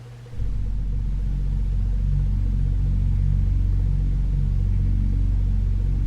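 A deep, steady low drone comes in about half a second in and holds: the ominous ambient rumble laid under a horror compilation.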